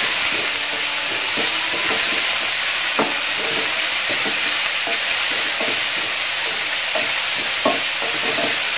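Chopped onions sizzling in hot oil in a frying pan as they are sautéed, stirred with a wooden spatula that scrapes and knocks against the pan now and then.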